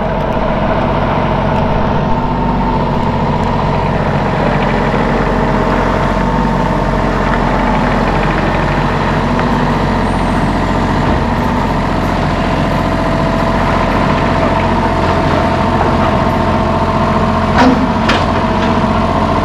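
Diesel engine running steadily at a constant speed, with two short sharp clicks near the end.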